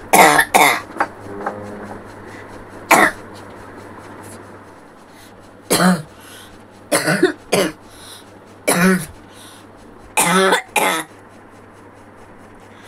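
A person coughing repeatedly: about ten short, harsh coughs, singly and in pairs, every second or two, from someone who says she has a cold.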